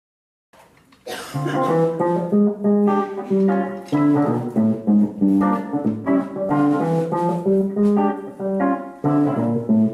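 Live jazz combo beginning to play: electric guitar picking out chords with keyboard beneath, starting about a second in after silence.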